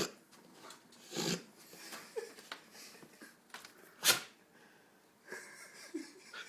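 Pit bull sneezing: three sharp sneezes, the loudest about four seconds in, with smaller breaths between. He is clearing water he drew up his nose while drinking.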